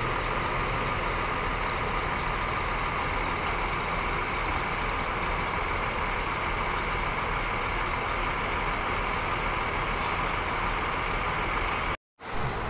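Diesel bus engine idling steadily, a constant unchanging drone. It cuts out abruptly for a moment near the end.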